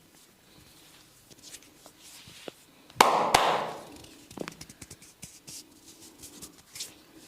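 Hands at work in a head massage: scattered light taps, then two sharp smacks in quick succession about three seconds in, the loudest sound, trailing into about a second of rustling.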